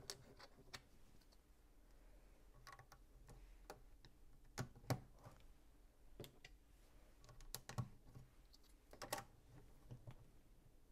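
Sparse, soft plastic clicks and taps of LEGO pieces being handled and pressed together. The loudest click comes about five seconds in, and there is a quick cluster of clicks near nine seconds.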